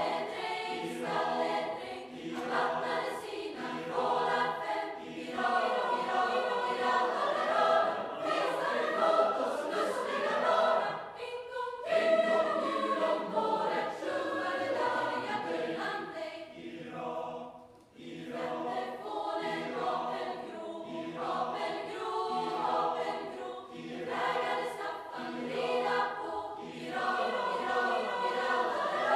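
Large school choir singing in long phrases, with a brief pause about eighteen seconds in.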